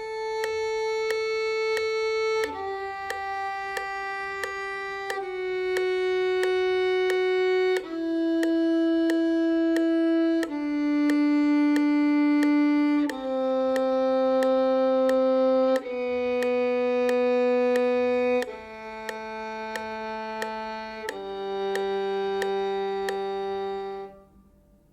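Solo violin playing a slow descending scale, nine long sustained notes of about two and a half seconds each, stepping down in pitch with an even tone. The last and lowest note stops about a second before the end.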